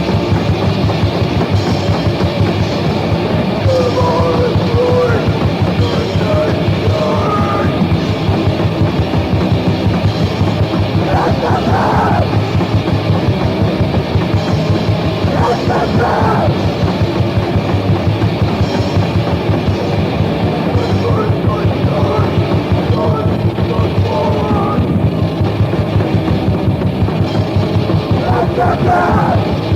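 Japanese crust punk band playing a fast, loud, distorted hardcore song with a pounding drum kit. Shouted vocals break in several times.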